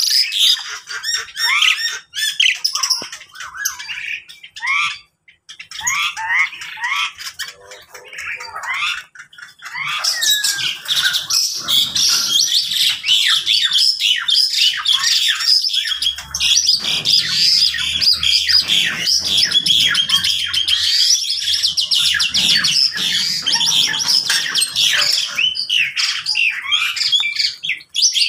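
Mixed aviary of caged birds, lovebirds among them with mynas and other small birds, squawking and chirping. The calls are scattered at first, then thicken about ten seconds in into a dense, continuous high-pitched chatter.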